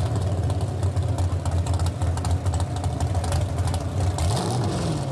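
Nissan Skyline "Hakosuka" drag car's engine idling loud and lumpy on open exhaust, with a brief rev about four seconds in.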